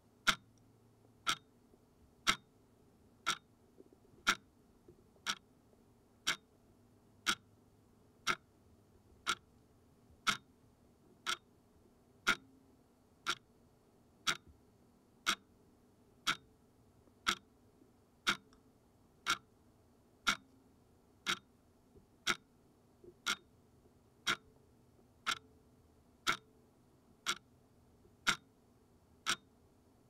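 Analog clock ticking steadily, one sharp tick about every second, some ticks a little louder than others.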